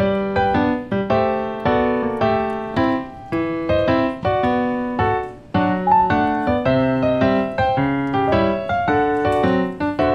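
Background piano music: a gentle melody of separate notes, a few a second, each struck and fading.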